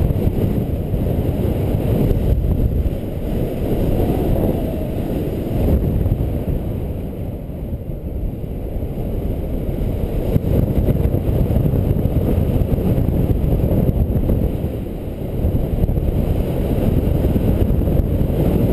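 Airflow of a paraglider in flight buffeting the camera microphone: a loud, low rumble that swells and eases.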